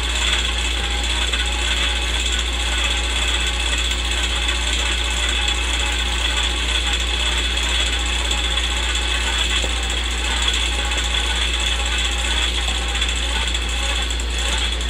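Old film projector running: a steady mechanical clatter over a low hum.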